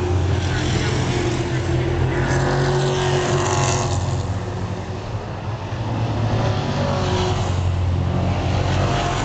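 Stock car engines racing around a paved oval track. The pack's sound swells as the cars pass close about four seconds in, eases slightly, then builds again as they come round.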